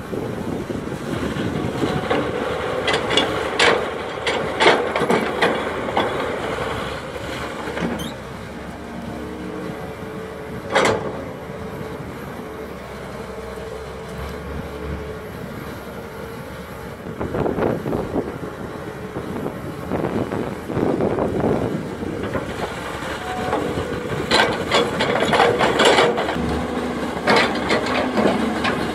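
Priestman Bogmaster tracked excavator's diesel engine running steadily as it digs, with bursts of knocks and clanks from the bucket and boom at intervals.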